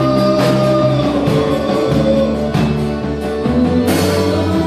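Church worship music: held chords over a moving bass line, with a few sharp hits.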